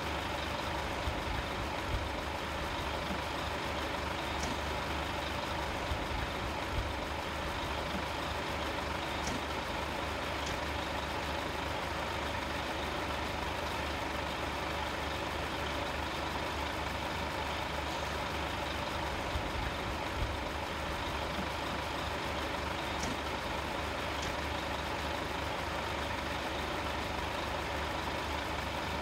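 Coach's diesel engine idling steadily, a constant low hum with a few faint clicks over it.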